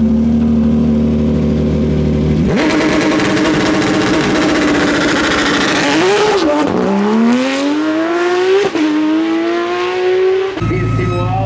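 Hillclimb race car held at steady revs on launch control, then launching about two and a half seconds in and accelerating hard, the engine note climbing through two upshifts. Near the end it breaks off to a lower, steady engine idle.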